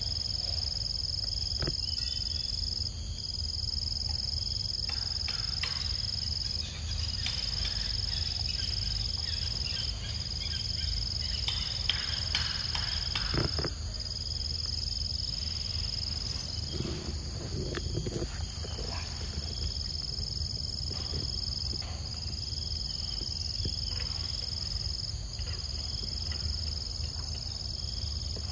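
Insects droning steadily at a high pitch, the drone breaking off briefly every few seconds, over a low rumble. A few faint rustles and clicks sound in the middle.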